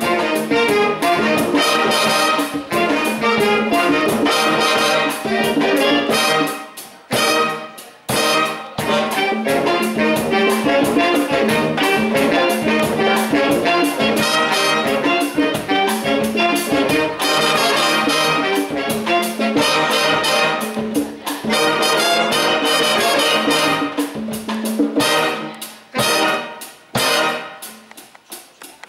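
Wind band playing a Cuban-style tune: clarinets, saxophones and brass over a drum kit. Near the end the music breaks into short, separated hits.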